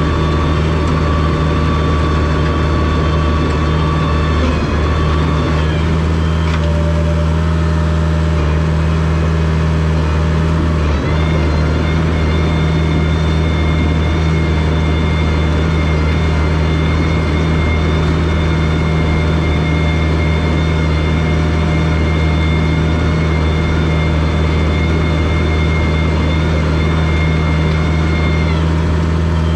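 Komatsu bulldozer's diesel engine running steadily at a constant working speed, with a thin high whine that comes in about a third of the way through and stops near the end.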